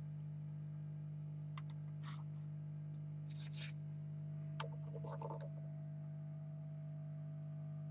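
Small scattered clicks and scratches of tools working on a circuit board during a CPU replacement, one sharper click about halfway through, over a steady low electrical hum.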